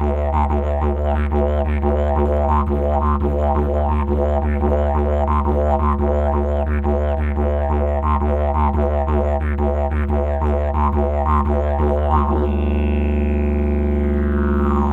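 Didgeridoo music: a steady low drone with rhythmically pulsing overtones. About twelve and a half seconds in, the pulsing stops and a held note follows, with a bright overtone sweeping downward.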